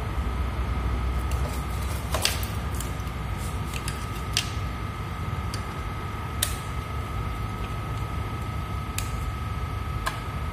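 Scattered small clicks and plastic taps as wires are handled and pushed into a digital thermostat controller's screw terminal block, over a steady background hum with a faint high steady tone.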